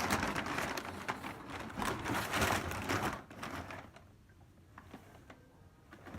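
Rustling and crinkling of packaging being handled, a dense run of small rapid crackles for about three seconds, then dropping to quiet with a few faint rustles.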